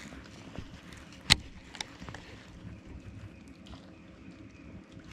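Faint steady background noise, broken about a second in by one sharp knock and a fainter tick half a second later.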